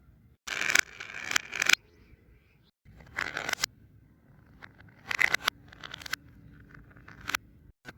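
Handling sounds of fidget-toy balls played in reverse: several short noisy bursts that each swell and then cut off abruptly, the longest starting about half a second in and a smaller group near the middle.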